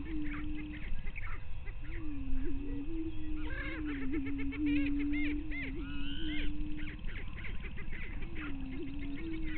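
Greater prairie chickens booming on their lek: low hoots that swell and overlap into a near-continuous chorus. Higher cackling and whooping calls cluster between about three and a half and seven seconds in. A low rumble runs underneath.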